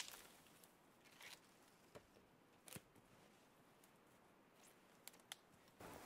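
Near silence, broken by a handful of faint, short, sharp clicks scattered irregularly, the clearest right at the start and two close together about five seconds in.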